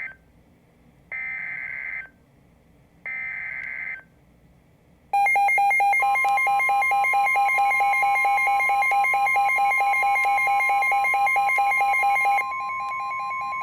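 Emergency Alert System broadcast from a weather radio: two bursts of buzzing SAME digital header data, about a second each, two seconds apart. About five seconds in a loud, rapidly pulsing electronic alarm beep starts, and a second later a steady warning alarm tone near 1 kHz joins and holds, signalling that a new warning is coming. The pulsing beep drops in level about twelve seconds in.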